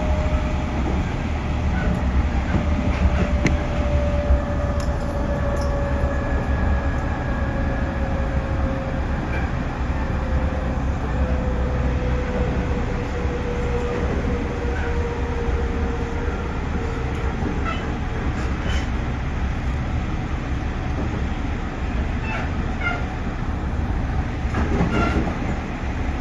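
JR Central 311 series electric train running, with a steady low rumble of wheels on rail and a faint motor whine that slides slowly down in pitch over the first half as the train slows. A few sharp clicks come near the end.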